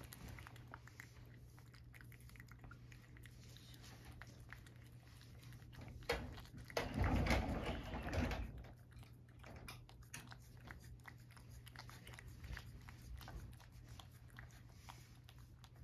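A cat eating a soft treat, with faint, quick licking and chewing clicks over a steady low hum. A louder noise lasts about a second and a half, about seven seconds in.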